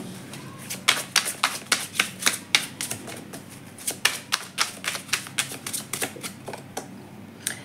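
A tarot deck shuffled by hand: a fast, irregular run of crisp card clicks and flicks, with short pauses.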